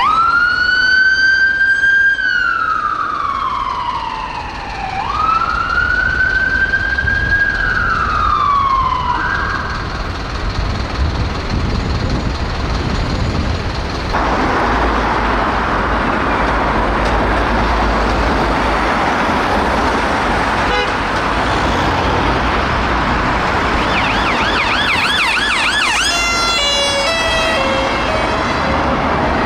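Emergency vehicle siren in a slow wail, rising and falling in long sweeps for about ten seconds. It then gives way to the loud rush of a passing vehicle and traffic, with a short burst of fast-warbling siren near the end.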